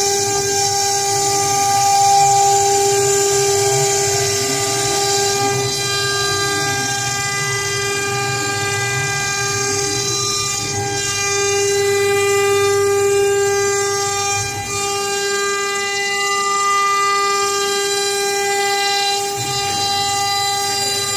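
CNC router spindle running at high speed with a steady high-pitched whine while its bit engraves a wood board. Fainter rising and falling whirs come from the axis motors as the gantry moves.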